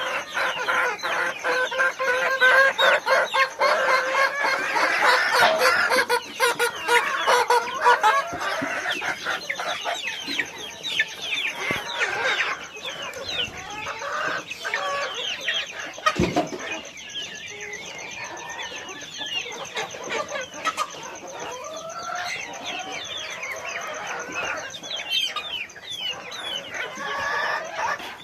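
A flock of chickens clucking and calling over one another, loudest and densest in the first several seconds, with a rooster crowing among them.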